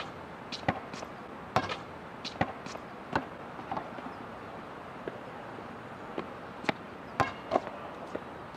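Basketballs bouncing on an outdoor court: a dozen or more sharp thuds at uneven intervals over steady outdoor background noise.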